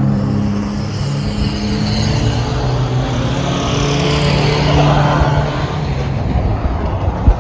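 Engines of banger racing cars running as they lap the oval, swelling and fading as cars go by, with one sharp knock just before the end.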